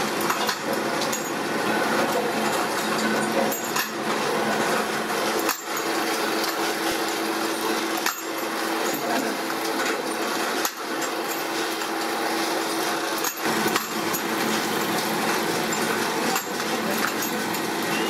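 Bench drill presses drilling steel latch parts, with metal pieces clinking against each other and into metal trays; the sound breaks off briefly every few seconds.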